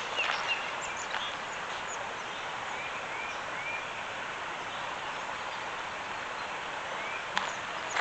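Steady rushing of a river flowing over a shallow riffle, with a few short rising bird chirps in the middle and again near the end.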